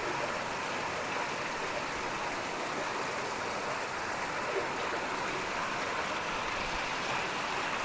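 Steady, unbroken rush of water, even and without breaks.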